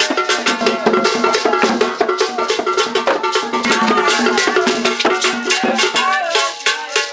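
Traditional Ghanaian barrel drums beaten in a quick, steady rhythm of sharp strikes, with voices singing over them.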